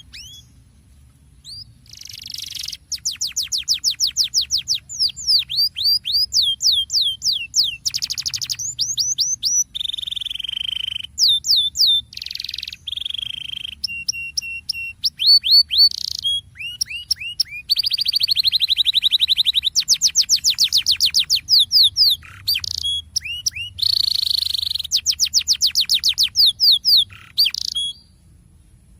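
Domestic canary singing its rolling song: phrases of very fast repeated down-slurred notes, each a trill of a few seconds, broken by short held buzzy notes and brief pauses.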